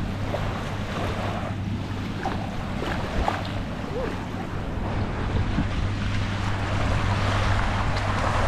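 Wind buffeting the microphone over the sound of surf, with the steady low hum of a motorboat engine running throughout.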